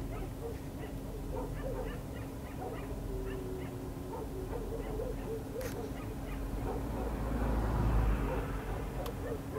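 A pack of stray dogs howling and yipping in chorus, many short rising-and-falling calls overlapping, with one howl held on a steady note about three seconds in. A low rumble swells and fades about seven to eight seconds in.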